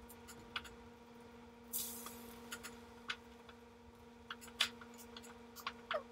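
Metal kitchen tongs clicking and scraping faintly against a ceramic bowl as bread is turned in egg batter, a scatter of light clicks with a brief hiss about two seconds in and a short squeak near the end. A steady low hum runs underneath.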